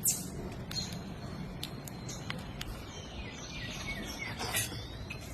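Birds chirping: many short, sharp, high calls with a thin held whistle and a brief warbling run, over a steady low background hum.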